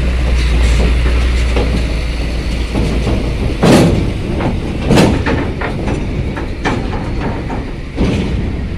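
A heavy tanker truck's engine running low, then loud metallic clanks about three and a half seconds in and again a second later, followed by lighter knocks, as its wheels roll over the steel plates of a ferry loading ramp.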